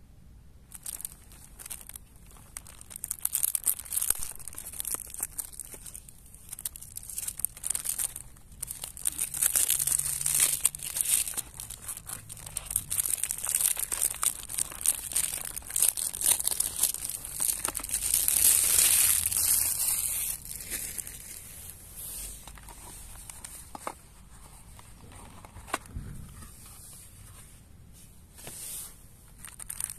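Clear cellophane wrap being torn and peeled off a cardboard chocolate box, a dense crinkling that comes in louder spells through the middle, then eases off to quieter crinkles and handling of the cardboard box near the end.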